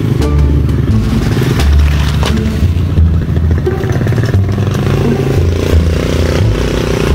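A small motorbike engine running as the bike approaches, over background music with a heavy bass line.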